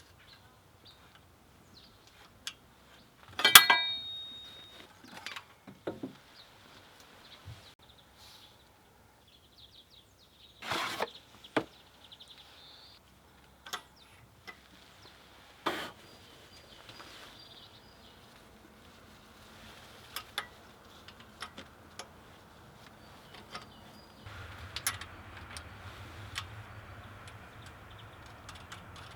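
Hand tools and metal parts clinking and knocking during engine work, in scattered separate strikes; the loudest is a ringing metallic clank a few seconds in. A steady low hum joins near the end.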